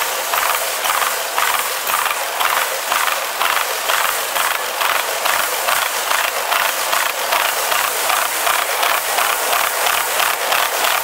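Wheels of loaded railroad tank cars clattering over a diamond crossing in a rapid, even rhythm of sharp clicks, about four or five a second. The footage is sped up, so the clatter comes fast and high-pitched, with little low rumble.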